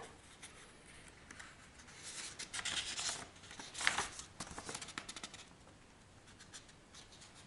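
Pages of a paper instruction manual rustling as they are leafed through, in a few short flurries, the sharpest about four seconds in.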